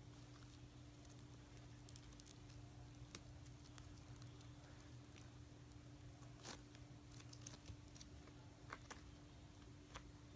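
Near silence: a faint steady hum with a few soft scattered clicks and squishes as a firm, Play-Doh-like slime is handled.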